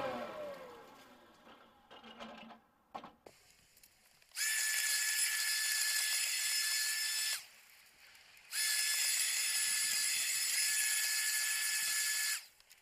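Ryobi 40V Vac Attack leaf vacuum/mulcher. Its motor winds down with a falling whine in the first second, and after a few clicks it runs twice with a steady high whine, about three seconds and then about four seconds, each time switching on and cutting off abruptly. It is vacuuming leaves out through the Worx LeafPro hose into a covered bin, where the angle of the outlet is restricting the flow.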